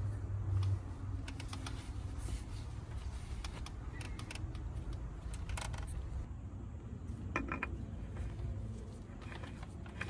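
Scattered light clicks, taps and brief rattles of small parts and tools being handled, over a steady low rumble.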